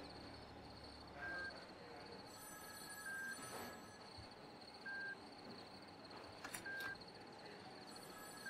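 Faint electronic beep of a hospital patient monitor, one short tone about every two seconds, over a steady high chirring of crickets. Two brief clicks come about two-thirds of the way through.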